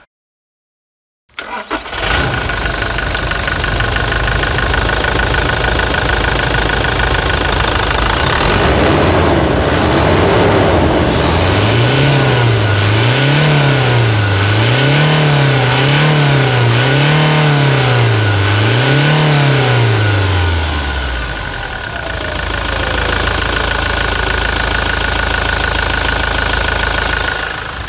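2021 Toyota Hilux's 204 hp 2.8 turbodiesel engine running with the bonnet open, with a steady high whine over the engine note. After about ten seconds it is blipped repeatedly, the revs rising and falling about every second and a half for some ten seconds, then it settles back to idle.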